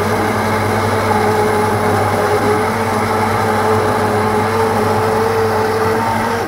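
Electric stick blender running steadily as it purées a pot of cooked tomatoes into sauce, then switched off abruptly at the end.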